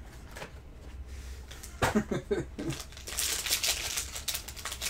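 Foil trading-card pack wrapper crinkling as it is handled and pulled open by hand, thickening into dense crackling from about three seconds in. There is a brief murmur from a voice about two seconds in.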